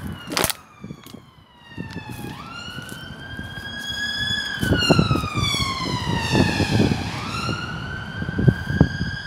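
An emergency vehicle's siren wailing, its pitch sliding slowly down and back up in long sweeps of a few seconds each. Wind rumbles on the microphone underneath.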